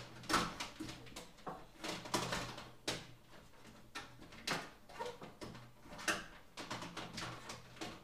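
Irregular clicks and knocks of aquarium equipment being handled and fitted by hand, a dozen or so over several seconds, over a faint low steady hum.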